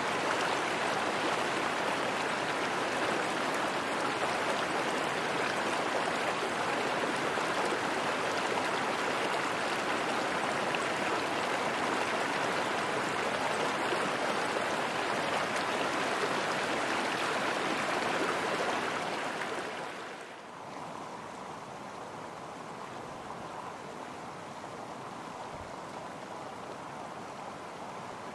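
Shallow mountain stream rushing steadily over rocks. About two-thirds of the way through it drops to a quieter, softer water sound that stays steady.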